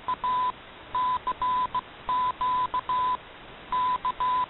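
Morse code tone of about 1 kHz keyed in dashes and dots, repeating "CQ" (dash-dot-dash-dot, dash-dash-dot-dash), received over an AM shortwave broadcast with a steady hiss between the tones.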